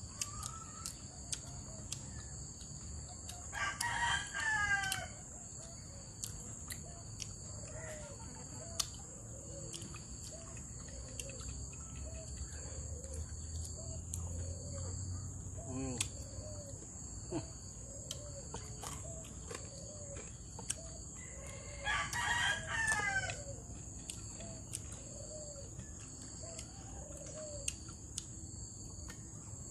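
A rooster crowing twice, about four seconds in and again past the twenty-second mark. A steady high insect drone runs underneath.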